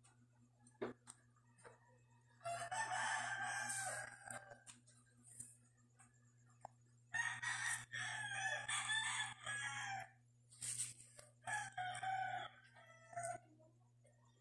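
Domestic fowl calling in the background: two long calls of two to three seconds each, then a few shorter calls near the end, over a steady low hum.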